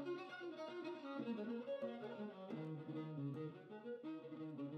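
Quiet background music of slow, sustained bowed-string notes that change pitch every second or so.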